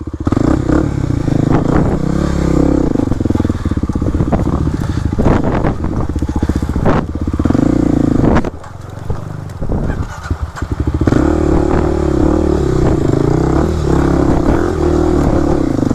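Kawasaki KLX300 single-cylinder four-stroke dirt bike engine running at low revs with small throttle changes. It drops quieter for a couple of seconds around the middle, then picks back up.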